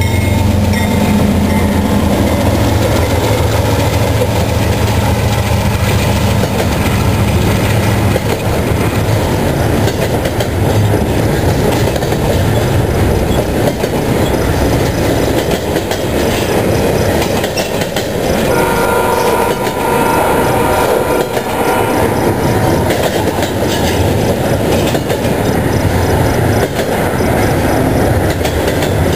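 CSX diesel freight locomotives rumbling past close by, followed by a double-stack container train rolling by with a steady clatter of wheels over the rails. A high ringing tone sounds for a few seconds a little past the middle.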